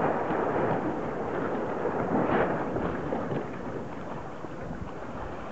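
Wind buffeting the microphone, a rough, rumbling rush that eases a little after about three seconds.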